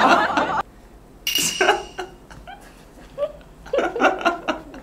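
A loud, dense sound cuts off about half a second in. A short sharp burst with a high ringing tone follows, then several brief vocal sounds from a person: short chuckles or grunts.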